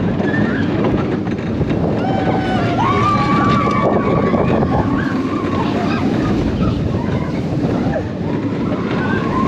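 Steel spinning coaster car running along its track at speed, with a steady rush of wind over the microphone. Over it come high-pitched riders' shrieks and whoops, one held for a couple of seconds in the middle.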